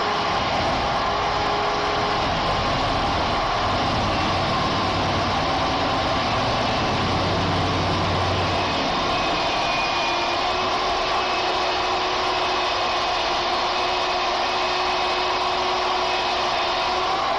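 Electric magnetic drill press running steadily under load, its combination drill-and-tap bit being fed by hand into a steel beam.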